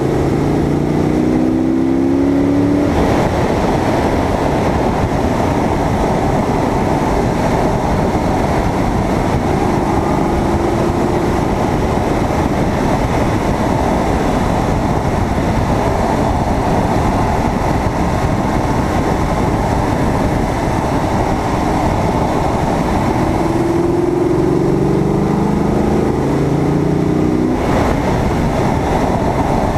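Steady rush of wind and tyre noise on a low exterior-mounted camera on a moving Corvette, with the car's V8 engine rising in pitch under acceleration near the start and again from about 23 seconds in, each climb ending abruptly.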